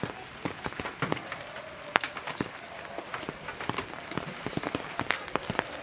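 Rain falling steadily, with many individual drops striking at irregular intervals.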